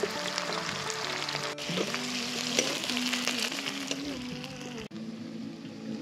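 Sliced onions and dried red chillies sizzling and crackling in hot oil in an iron wok over a wood fire, stirred with a steel spoon, under a background song. The sizzle grows fainter near the end.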